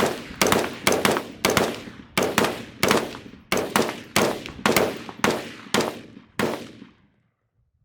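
A rapid string of gunshots, about fifteen in six and a half seconds at uneven spacing, each shot ringing out with a short echo; the firing stops about six and a half seconds in.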